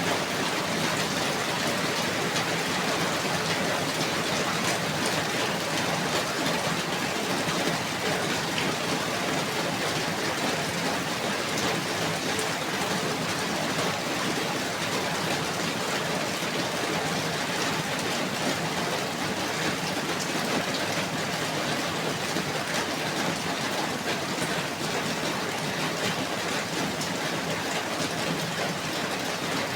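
Steady rain falling, an even hiss with a dense patter of drops hitting a surface.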